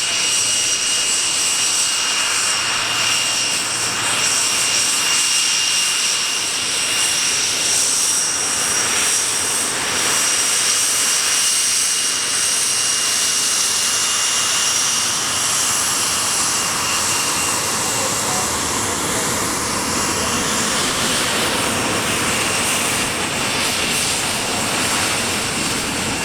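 Aircraft engines running steadily: a loud rushing drone with a thin, steady high whine.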